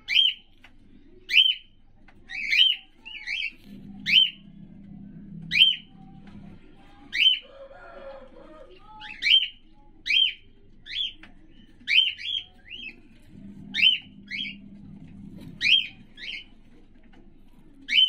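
Cockatiel giving short, sharp, falling chirps, about one a second, with the calls sometimes coming in quick pairs. The calls come while the bird's bound egg is being pressed out by hand.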